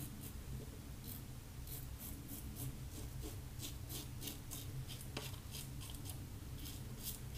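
Fine Accoutrements Marvel double-edge safety razor scraping through lather and just over two days' stubble in short strokes, two or three crisp rasps a second.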